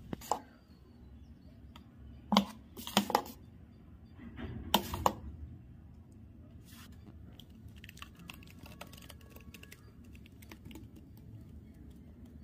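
Steel spoon clinking and scraping against a steel jar while stirring blended green chutney: a few sharp clinks in the first five seconds, then lighter scattered ticks.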